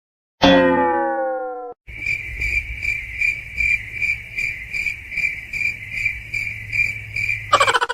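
Cricket chirping, a steady high trill pulsing about two and a half times a second, after a short falling pitched cry about half a second in. Near the end the chirping cuts off and a different rapid pulsing sound begins.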